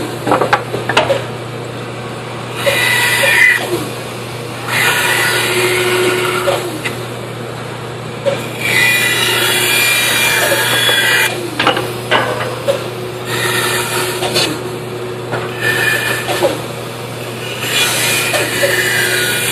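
Band saw running with a steady motor hum while its blade cuts through a thick wooden block in several passes of a few seconds each, the cutting noise swelling as the blade bites and dropping back to the hum between passes. A few short knocks come between the cuts.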